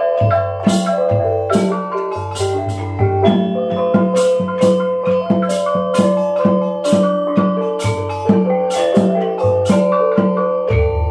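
Gamelan ensemble playing: rows of bronze kettle gongs struck with mallets in a steady ringing pattern of tuned notes, with kendang drum strokes keeping the pulse. A deep low note comes in near the end.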